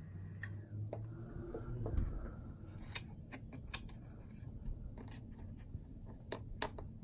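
Scattered light clicks and scratches of fingers working the small headphone-jack cable connector back onto the logic board of a 21.5-inch iMac.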